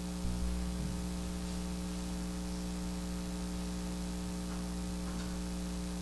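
Steady electrical mains hum with a stack of overtones, with a brief low thump about a third of a second in.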